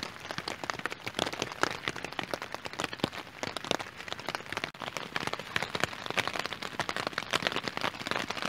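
Rain pattering on a tent, heard from inside: a dense, irregular spatter of drops striking the fabric.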